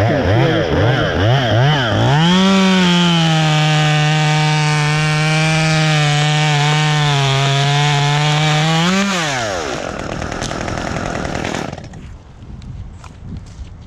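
A small motor is pulsed up and down in speed a few times, then held running for about seven seconds with its pitch sagging slightly, then released so it winds down.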